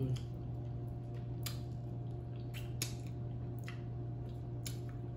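Close-up chewing of chicken, with a few scattered wet mouth smacks and finger-licking clicks over a steady low hum.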